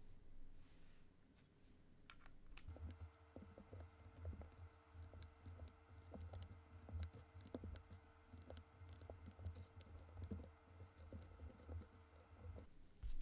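Typing on a mechanical keyboard with lubed Cherry MX Vintage Black switches: a quiet run of irregular key clacks starting about three seconds in, over a low steady hum that stops shortly before the end.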